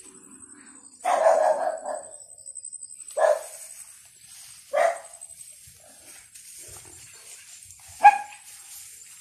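A dog barking: a longer run of barks about a second in, then three single sharp barks spaced a second or more apart, the last and loudest near the end.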